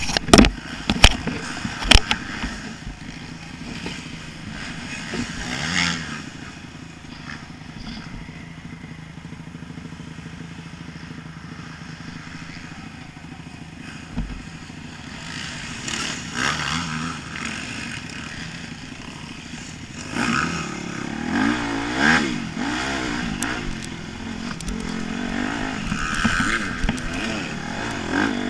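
Motocross bike engine heard from an onboard camera, revving up and down as the bike is ridden around a dirt track. There are several loud knocks in the first two seconds, and the revving grows harder and louder in the last third as the bike accelerates.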